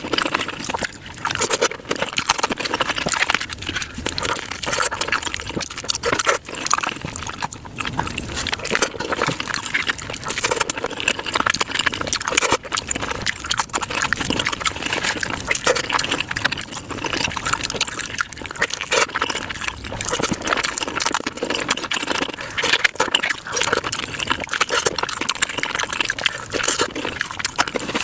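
Close-miked mukbang eating sounds of tacos, sped up five times: a rapid, unbroken stream of crunching, chewing and wet mouth noises.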